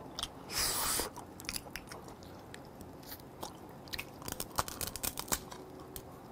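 Close-miked biting and chewing of steamed blue swimming crab legs, with many small clicks and crunches of shell between the teeth and a louder noisy rush about half a second in.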